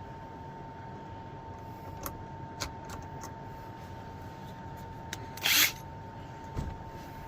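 Hardware and hand-tool handling during latch fitting: a few light clicks and taps, a short loud scraping rasp about five and a half seconds in, and a dull thump a second later, over a steady faint hum.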